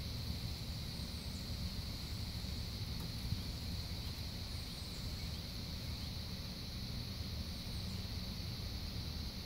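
Outdoor ambience: a low wind rumble on the microphone, a steady high-pitched drone, and a few faint, short bird chirps.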